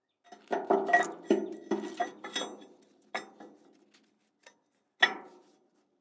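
Metal clinking and knocking against the steel underside of a dump truck bed. A quick run of about ten knocks fills the first few seconds, followed by three single knocks, the last near the end.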